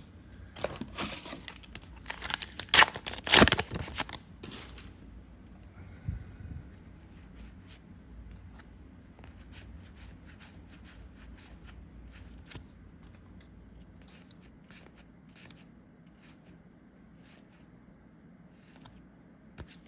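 A trading-card booster pack wrapper being torn open: a loud ripping over the first few seconds, strongest about three seconds in. After that, only faint scattered clicks as the cards are handled.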